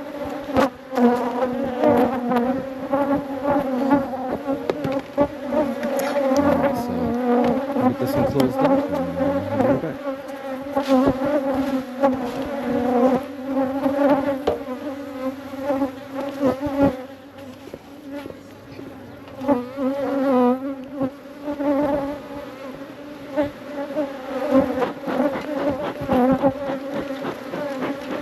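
A colony of honeybees buzzing close by at an open hive: a dense, continuous buzz that wavers in pitch, with scattered short clicks and knocks.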